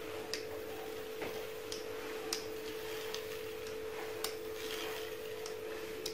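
Light, irregular clicks from a small metal pastry pincer as its tips pinch decorative marks into semolina dough, about nine in all, over a steady low hum.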